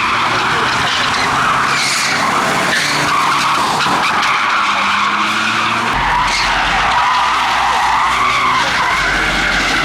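Car tyres squealing continuously under wheelspin, wavering in pitch, over a hard-revving engine. A low rumble joins about six seconds in.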